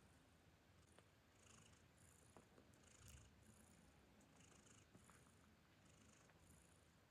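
Cats purring faintly and steadily while newborn kittens nurse, with soft, repeated wet clicks through it.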